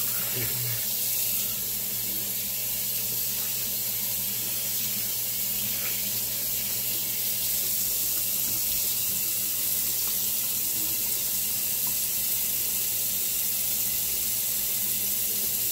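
Water running steadily from a sink tap, with a low steady hum underneath.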